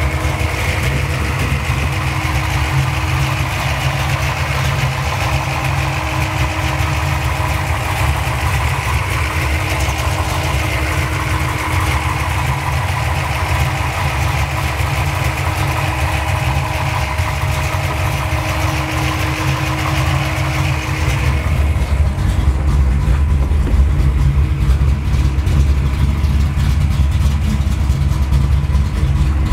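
1995 Ford Mustang SVT Cobra R's V8 engine idling steadily. About twenty seconds in the sound turns deeper and duller, the bright upper part falling away while the low rumble grows.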